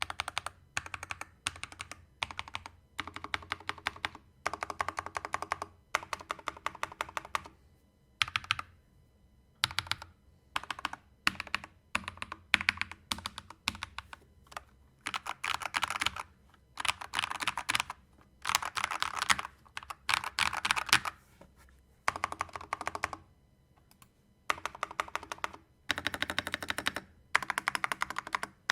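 Typing on a Redragon Kumara K552 tenkeyless mechanical keyboard fitted with Akko CS Vintage White linear switches. The keystrokes come in rapid bursts of a second or two, separated by short pauses.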